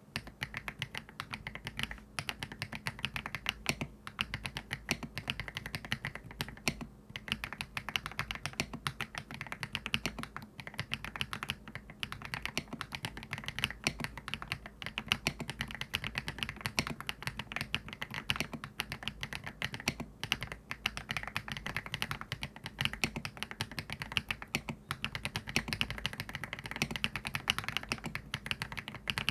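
Steady fast typing on an Aula F87 Pro foam-filled tenkeyless mechanical keyboard fitted with factory-lubed HMX Hibiscus linear switches: a dense, continuous stream of keystroke clacks.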